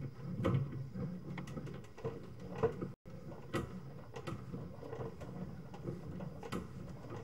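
Sewer inspection camera's push cable being fed into a drain line: irregular clicks and knocks over a low rumble as the cable rubs and rattles along.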